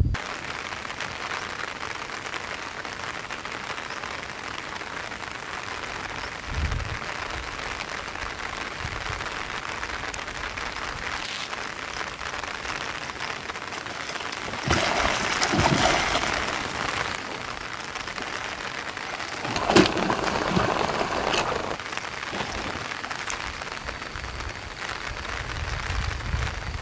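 A hooked black carp thrashing at the water's surface on a long fishing pole, splashing in two louder spells, over a steady hiss.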